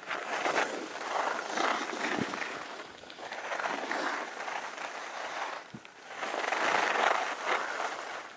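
Skis carving turns on groomed snow: the edges scrape with a hiss that swells and fades with each turn, about once a second.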